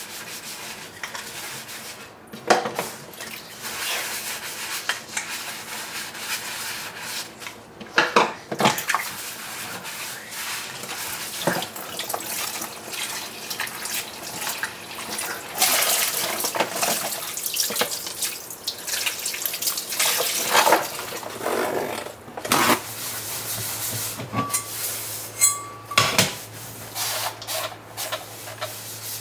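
Water running and splashing, with scattered clinks and knocks like dishes being handled. A steady low hum starts about three-quarters of the way through.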